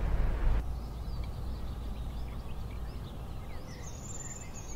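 Outdoor ambience: a low steady rumble with faint bird chirps. A louder rumble cuts off about half a second in.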